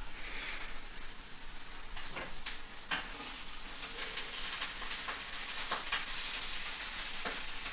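Felt-tip marker scratching across flip chart paper in a run of short, quick strokes as words are written out.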